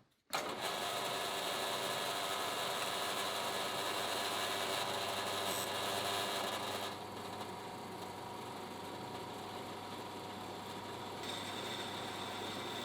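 A handheld power tool working on car body sheet metal. It starts abruptly and runs steadily, then drops somewhat in level about seven seconds in.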